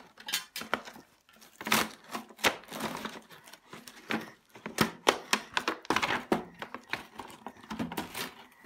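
Cardboard toy box being torn open and its clear plastic window film pulled and crinkled: a run of irregular crackling, rustling and tearing noises.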